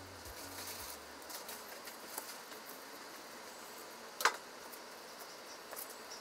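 Quiet food-handling sounds as shiso leaves are pressed onto rice in bento boxes, with faint soft ticks and one sharp click about two-thirds of the way through.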